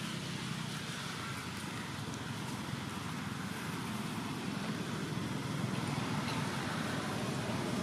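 Steady outdoor background noise: a low rumble with a fainter hiss above it, slowly growing a little louder, with no distinct events.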